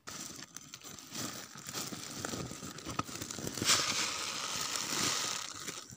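Plastic seed sack crinkling and rustling as a hand handles it and reaches inside. It is an irregular crackle of many small clicks, loudest a little past the middle.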